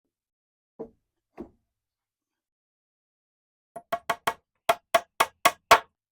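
Hammer driving a nail into a poplar board: two light taps about a second in, then a quick run of about nine sharp blows, roughly four a second, growing louder.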